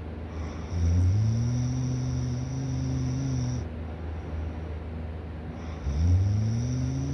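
A sleeping person snoring: two long, low snores about five seconds apart, each rising in pitch as it starts and lasting about three seconds, over a steady low hum.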